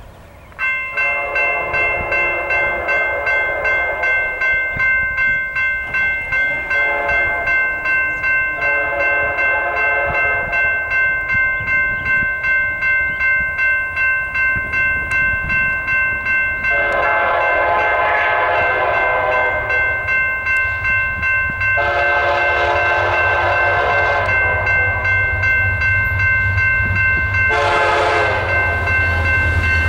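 Horn of an approaching freight locomotive, an EMD SD60M, sounding a series of long blasts with short gaps, over a bell ringing about one and a half times a second. A low diesel rumble builds in the last third as the train nears.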